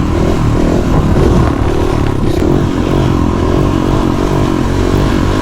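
KTM supermoto motorcycle engine running steadily under throttle while being ridden.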